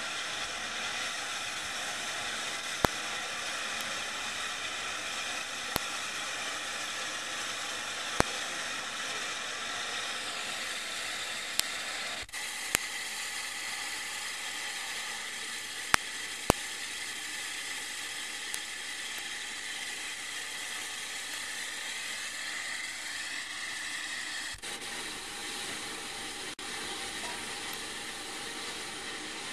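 Steady hiss of steam from WD Austerity 2-8-0 steam locomotive No. 90733 standing at the platform, with a handful of sharp clicks. The sound changes abruptly twice, where the recording cuts.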